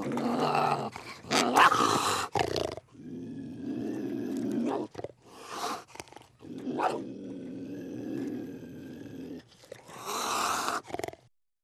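Animal growls and roars in a string of rough calls, some loud and short, some lower and drawn out, with brief gaps between. The calls stop abruptly shortly before the end.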